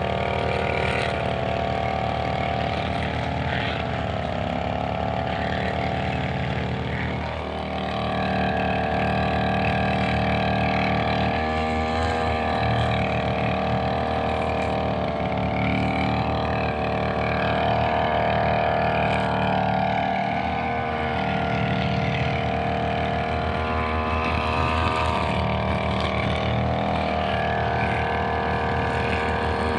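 Brushcutter engine running steadily at high speed, its pitch dipping and recovering several times.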